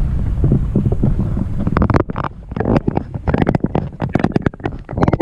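Low rumble of wind on the microphone, giving way about two seconds in to a run of irregular sharp crackles and knocks.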